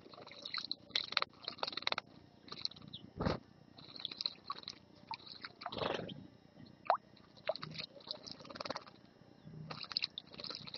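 Small finches, a European goldfinch and European greenfinches, bathing in a shallow stone bird bath: irregular short bursts of splashing water.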